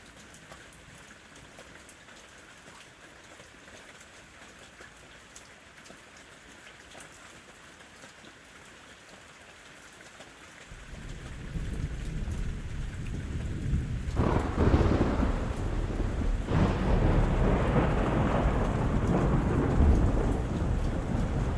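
Steady light rain hiss. About halfway through, a low rumble of thunder builds, and a few seconds later it breaks into a loud, rolling thunderclap that keeps rumbling.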